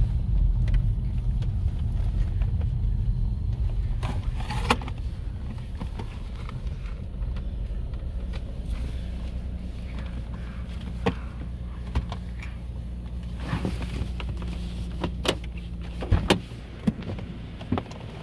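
Car's engine and tyre noise heard from inside the cabin: a steady low rumble as the car moves slowly up to the wash bay, with scattered sharp clicks and knocks. The rumble drops away about sixteen seconds in.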